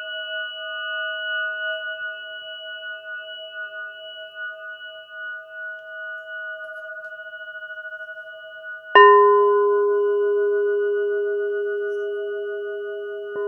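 Crystal singing bowl and crystal pyramid ringing: several sustained, slowly wavering tones fade, then about nine seconds in a lower note is struck and rings on, slowly dying away. A second, lighter strike sounds near the end.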